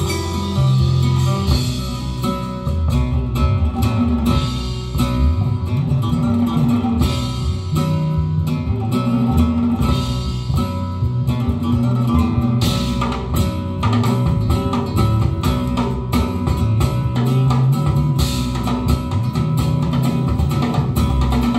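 Recorded music with guitar and bass played through a hi-fi system's Borresen 05 Silver Supreme Edition floor-standing loudspeakers.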